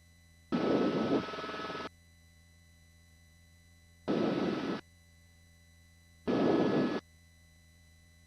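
Helicopter cabin noise heard through the intercom in three short bursts that cut in and out abruptly as the intercom microphone opens and closes. Between the bursts there is near silence with a faint steady hum.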